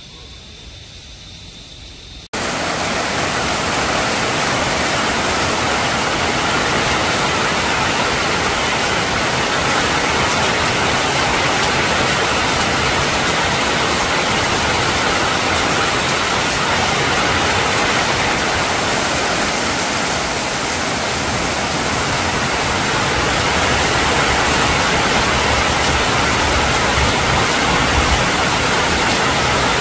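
Heavy rain falling in a steady, loud downpour, starting abruptly about two seconds in.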